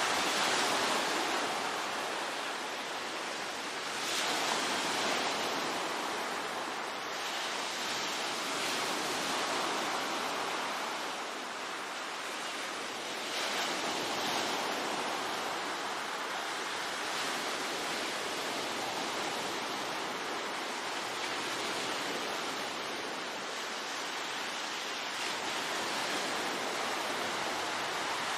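Ocean waves breaking on a shore: a continuous wash of surf that swells with each wave every four or five seconds in the first half, then settles into a steadier hiss.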